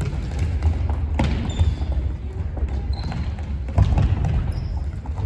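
Footballs thudding and bouncing on a wooden gym floor, mixed with running footsteps and a few brief high sneaker squeaks, all echoing in a large hall.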